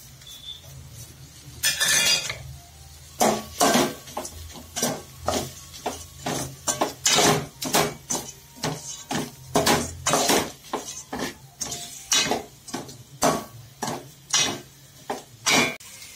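Steel ladle scraping and knocking against an aluminium kadai while quail pieces are stirred in a thick pepper masala. A longer scrape about two seconds in, then steady strokes about two a second.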